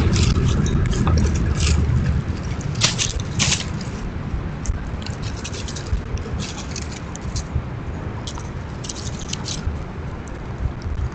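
Irregular scratching, scraping and crackling from squirrels foraging on dry leaves and wood chips close by, with a steady low rumble underneath.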